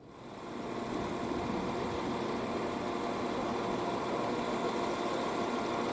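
DPKr2 diesel multiple unit standing at the platform with its diesel engine idling: a steady engine hum that comes up over the first second and then holds even.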